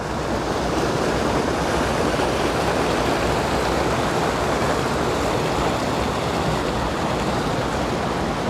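A waterfall roaring steadily as the water falls down a rocky creek.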